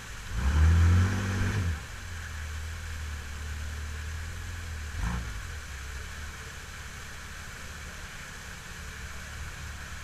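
Off-road Jeep's engine revving hard in a short burst as it climbs a waterfall ledge, then running at low revs while it crawls, with a brief blip about halfway through. Creek water rushes steadily underneath.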